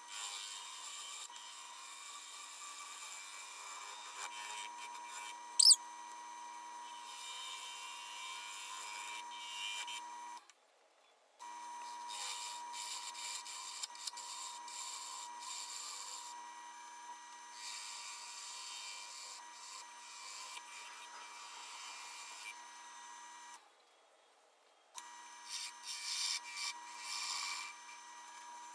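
Bowl gouge cutting the outside of a spinning wet-wood bowl blank on a lathe: a continuous scraping, shearing hiss as the wood peels off in long shavings, over the lathe's steady whine. A brief loud squeak about six seconds in, and the sound drops out twice for about a second.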